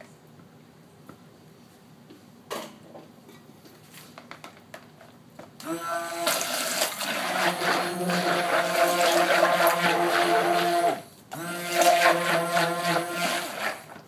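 Stick blender running in soap batter in two bursts: about five seconds, a brief stop, then about two and a half seconds more, with a steady pitched motor whine.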